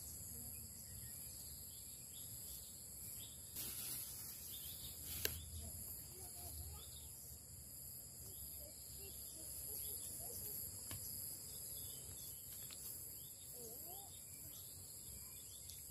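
Quiet rural ambience: a steady high-pitched drone of insects such as crickets, with faint distant voices and a single sharp click about five seconds in.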